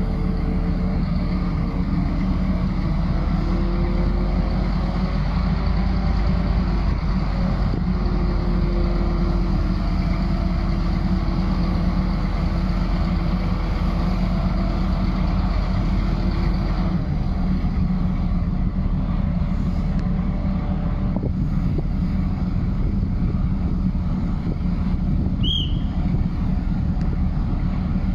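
Crane engine running steadily, with wind buffeting the microphone. A short high chirp sounds near the end.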